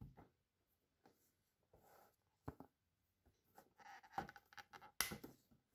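Faint handling sounds of clear acrylic panels as small rubber bands are fitted over the corner joints: scattered light taps and clicks with a little rustle. The most distinct knocks come about two and a half, four and five seconds in.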